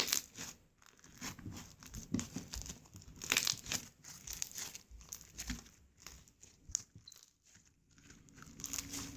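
Slime being squeezed, stretched and pressed by hand, giving a dense run of irregular crackles, pops and crinkling sounds.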